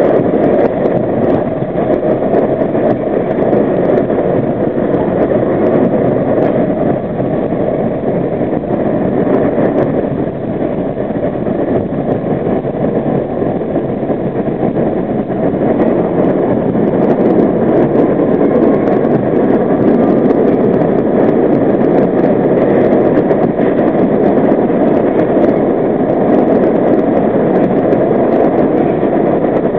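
R32 subway train running at speed through a tunnel: a steady, loud rumble of steel wheels on the rails, echoing off the tunnel walls.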